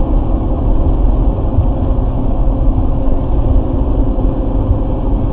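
Steady road and engine noise inside a car cruising at highway speed, about 110 km/h, heard through a dashcam's microphone: a dense, even rumble.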